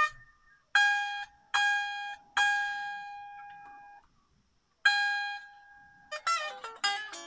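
Epiphone Les Paul Special electric guitar: the same high note is picked hard five times and left to ring, then a quick run of notes near the end. This is a check for string buzz after lowering the string height and recutting the nut slots.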